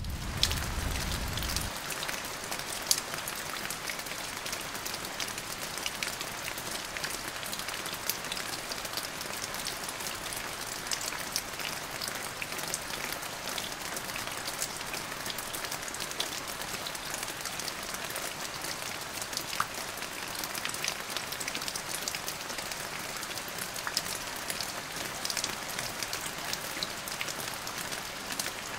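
Steady rain falling, an even hiss of rainfall with scattered sharper drop ticks. A low rumble underneath stops about two seconds in.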